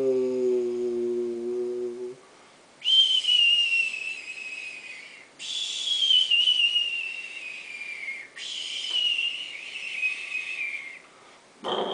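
A person imitating a sound with the mouth: a short hummed note, then three long whistles, each sliding slowly downward in pitch.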